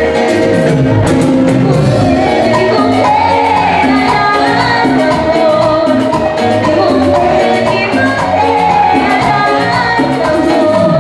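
Live salsa band playing through a stage PA: congas and timbales driving a fast beat with keyboard and bass, under a lead vocal.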